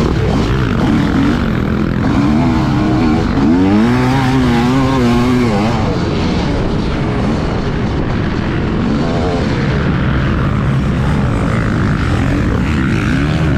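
Onboard sound of a motocross dirt bike's engine at race pace, its revs rising and falling through the corners and jumps. About three and a half seconds in the pitch climbs sharply and holds high for a couple of seconds before dropping back.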